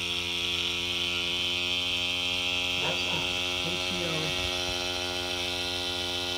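KaCio mini 0.5 cc two-cylinder single-acting oscillating steam engine running on steam at a steady speed: an even, fast buzz with a steady high hiss over it.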